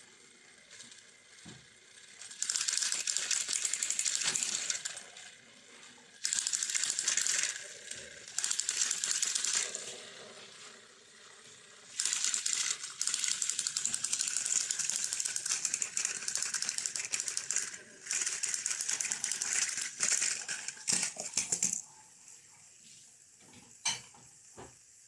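Battery-powered plastic toy train engines grinding and rattling, their motors and gears running while the wheels spin against the plastic track as the two engines push head-to-head. The noise comes in several long bursts with short lulls, and there is a sharp click near the end.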